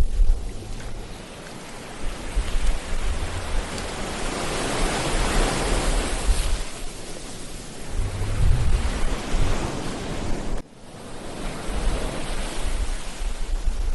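Ocean waves breaking and washing up the beach, one wave swelling to a broad rush in the middle, with wind buffeting the microphone in low rumbling gusts. The sound drops out abruptly for a moment a little past ten seconds.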